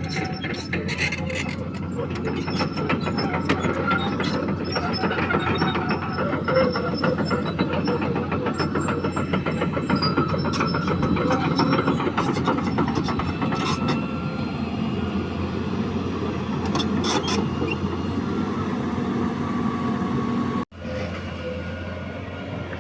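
CAT 320D hydraulic excavator's diesel engine running steadily while working, with scattered metallic clanks and squeals from the tracks and bucket. The sound cuts out abruptly for a moment near the end.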